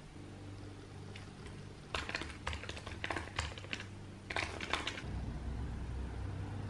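Runs of small, sharp clicks and taps: a few faint ticks first, then two busier clusters, over a low steady hum.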